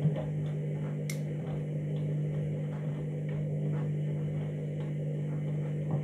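Candy front-loading washing machine running in its start-up phase with an overloaded drum: a steady machine hum with many small irregular clicks and knocks from the wet laundry and water turning in the drum, and one sharper click about a second in.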